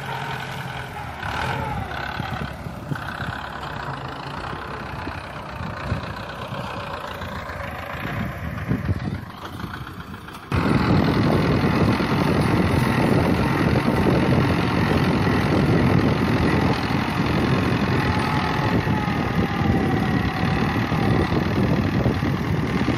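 Tractor engine running steadily while its front loader pushes soil and stones. The sound jumps abruptly louder about ten seconds in and stays loud.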